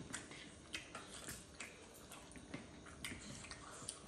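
Faint sounds of people eating: chewing, with scattered small clicks and taps of a spoon against plates and steel bowls.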